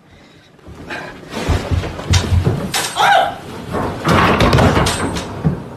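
Heavy thumps and bangs of a person tumbling down a flight of stairs, with a short cry about three seconds in and a loud crashing stretch near the end.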